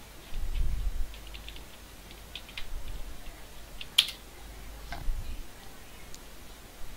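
Computer keyboard being typed: a run of light key taps, then one louder key press about four seconds in, as a password is typed and entered at a terminal prompt. A low rumble sounds during the first second.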